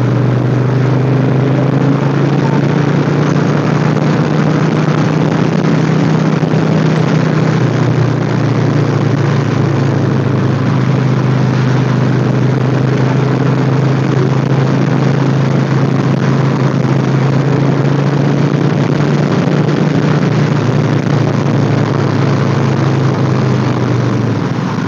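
Motorcycle engine running at a steady cruising speed under heavy wind rush.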